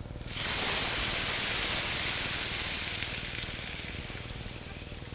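Water poured into a hot pan of frying rice, hissing and sizzling as it hits the hot pan. The hiss starts abruptly just after the pour begins, peaks over the next second or two, then slowly dies down.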